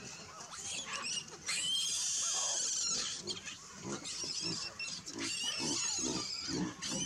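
Hamadryas baboons screaming and squealing as they chase and scuffle, many shrill calls overlapping, with one long harsh scream about a second and a half in.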